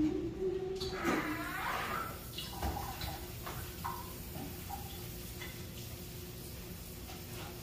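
A sponge in a rubber-gloved hand scrubbing a porcelain washroom sink, with short rubbing squeaks and small knocks, over a faint steady hum. A brief squeal with sliding pitch about a second in is the loudest sound.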